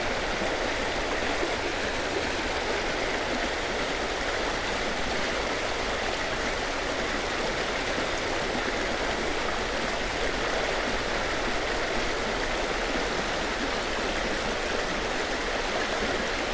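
Fast-moving creek current rushing steadily over rocks, with white water breaking close by.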